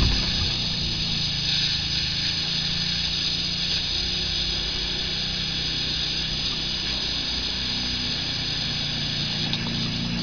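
Steady mechanical drone with a constant high whine over a low hum, unchanging throughout.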